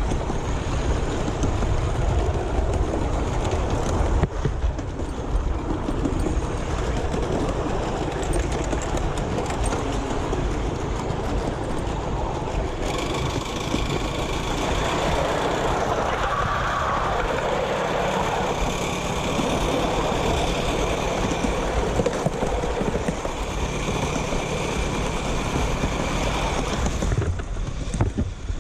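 Miniature steam train running along its track, heard from aboard, with a steady rumble throughout. About halfway in, a steady high-pitched ringing tone joins and runs on until near the end.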